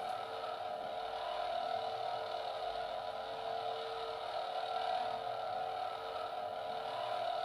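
Toy LED lightsaber's built-in speaker playing its steady electronic hum sound effect, a held, slightly wavering buzz.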